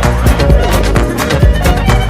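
Upbeat background music with a steady beat of regular percussive hits over a bass line.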